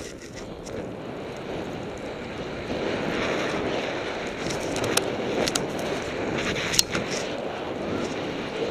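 Snowboard sliding and carving down a snow-covered run, a steady hiss of board on snow mixed with wind on the microphone, growing louder about a third of the way in. A few sharp clicks, the loudest past the middle.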